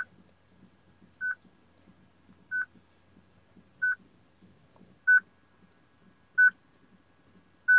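Peugeot RD45 car radio beeping: short beeps at one pitch, repeating evenly about every 1.3 seconds, seven times. This is the warning beep of a radio whose stored VIN does not match the car's chassis number.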